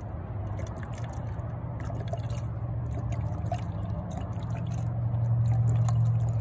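91% alcohol pouring in a thin stream from a bottle into a glass jar, trickling and splashing into the liquid already in it. Under it runs a steady low rumble of road traffic that grows louder near the end.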